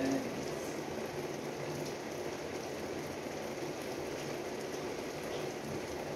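Light rain falling steadily on the streets, an even wash of noise with no distinct drops or breaks.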